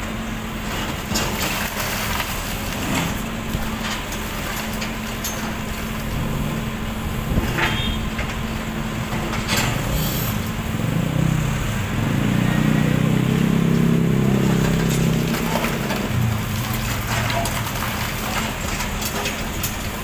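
Hyundai backhoe loader's diesel engine running while its bucket breaks up concrete walls, with scattered knocks and crunches of concrete and debris. About eleven seconds in the engine works harder and louder for some four seconds, then settles back.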